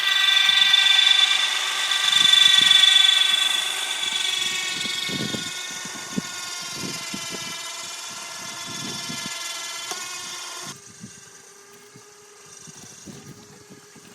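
Battery-powered electric boat winch motor whining steadily as it hauls the RIB out of the water onto its trailer. Its pitch sinks slightly partway through, and it stops abruptly about eleven seconds in.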